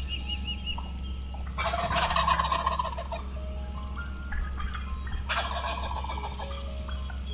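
Two bursts of rapid, pulsing bird calls about three and a half seconds apart, the first the longer, over faint background music.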